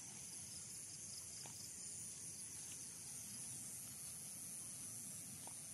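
Steady high-pitched chorus of insects, crickets or cicadas, droning without a break over a faint low rumble.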